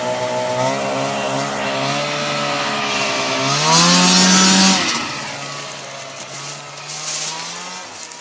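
1996 Arctic Cat Puma snowmobile's two-stroke engine idling, then revved sharply about three and a half seconds in and held high for about a second. It drops back to a steady lower note that grows fainter.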